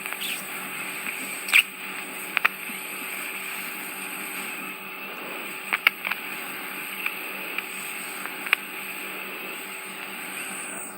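Ear microsuction: a steady hiss from the suction tip in the ear canal, with several sharp crackles and pops as wax and skin debris are drawn in. The hiss cuts off suddenly near the end.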